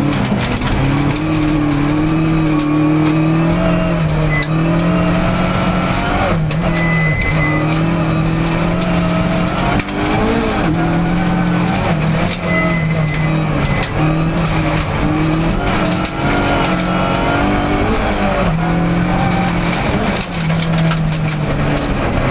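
Opel rally car's engine heard from inside the cabin, running hard on a gravel stage, its pitch repeatedly dropping and climbing again as the driver shifts and lifts. Steady tyre and gravel noise runs underneath.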